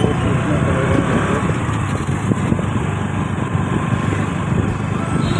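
Motorcycle engine running as the bike rides slowly through street traffic, heard from the rider's own microphone as a steady low drone mixed with wind and road noise.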